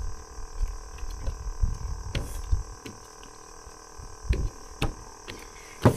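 Irregular low thumps and a few sharp clicks of movement or handling close to the microphone, over a steady background chirring of insects.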